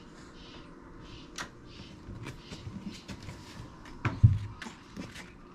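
Light taps and rustles of a tabby cat moving over a tabletop and cardboard, with one dull thump about four seconds in.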